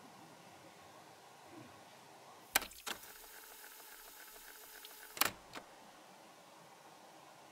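Tape-deck style fast-forward sound effect: a sharp mechanical click, about two and a half seconds of faint whirring hiss, then another click as it stops.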